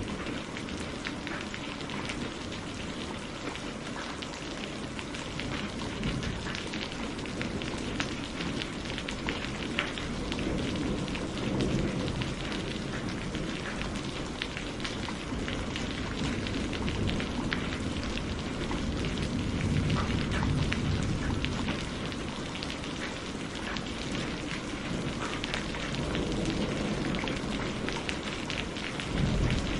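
Wood campfire crackling: a steady hiss dotted with many small pops and snaps, over a low rumble that swells and eases.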